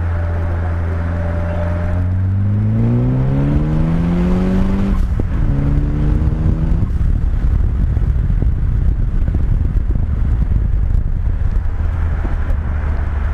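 Westfield SEiW kit car's engine pulling up through the revs, breaking off briefly about five seconds in as at a gear change, pulling again, then running on at a steady speed.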